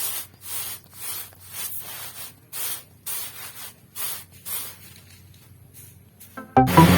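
Dry rice stalks swishing and rustling in short, crisp strokes, about two a second, as the crop is harvested by hand. Music comes back in near the end.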